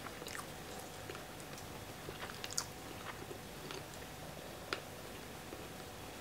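A person chewing a mouthful of food with the mouth closed. Soft, wet mouth clicks are scattered throughout, with two sharper clicks about two and a half and four and a half seconds in.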